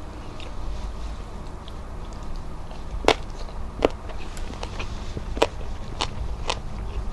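Close-miked eating: faint small ticks of fingers gathering rice and fried fish, then chewing with about five sharp, wet mouth clicks and smacks from about three seconds in.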